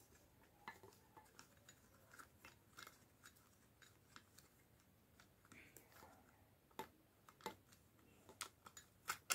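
Faint, scattered clicks and small scrapes of a plastic-and-metal track spotlight being unscrewed and taken apart by hand.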